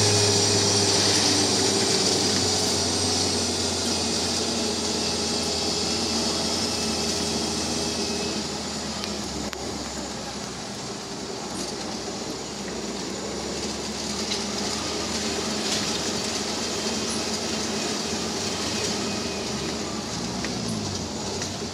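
Jeep engine running and road and wind noise heard from on board the jeep as it drives. The engine note is strongest at first and eases off about nine seconds in.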